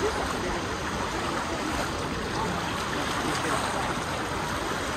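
Steady rush of shallow seawater washing and splashing through a tidal rock pool as people wade through it, with faint crowd voices behind.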